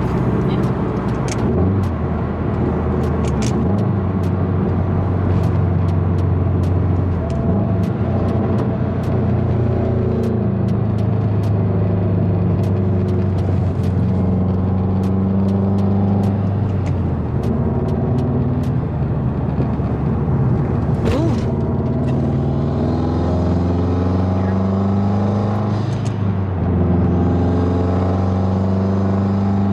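Subaru WRX STI's turbocharged flat-four running under way, heard inside the cabin with tyre and road noise. The engine note climbs and then drops back several times as it pulls through the gears. The cabin is loud, which the owner puts down either to the car sitting unused for a long time or to the emptied-out trunk.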